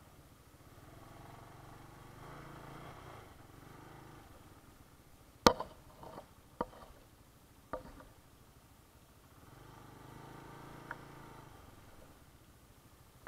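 Faint hiss of vehicles passing on a nearby road, rising and fading twice. Between the two passes come a few sharp knocks, the loudest about five and a half seconds in.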